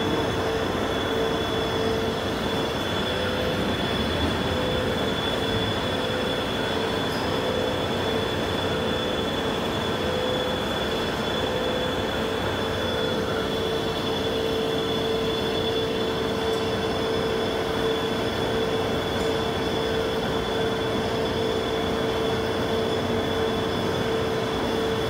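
Okuma LB15 CNC lathe running while a Kennametal HTS drill cuts into the spinning workpiece under flood coolant. A steady hiss of spraying coolant and cutting, with a steady whine held throughout.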